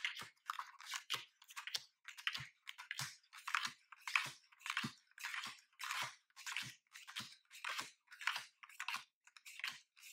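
Major Arcana tarot cards dealt one at a time into three piles on a tabletop, each card giving a short papery flick and light tap in a steady rhythm of a little under two cards a second.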